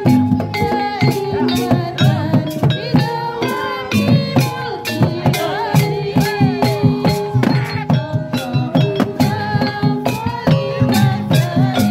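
Javanese jaranan music: a fast, steady beat of drum and percussion strokes under a melody of held notes that bend and waver.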